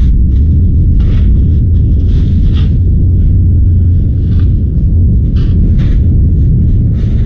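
Blizzard wind buffeting the microphone: a loud, steady low rumble with irregular brief hissing gusts.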